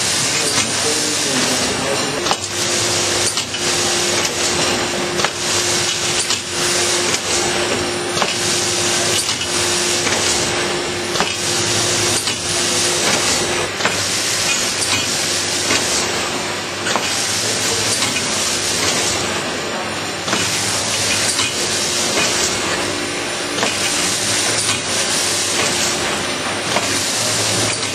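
Automatic film-wrapping and shrink-packaging machine running, a loud steady hiss of machinery that surges about every two seconds as it cycles. A steady hum runs through the first half, then mostly fades.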